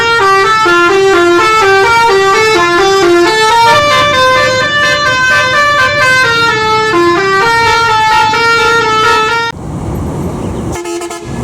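A bus telolet musical horn plays a fast melody of stepped notes, several tones sounding together. It cuts off suddenly near the end, leaving engine and road noise.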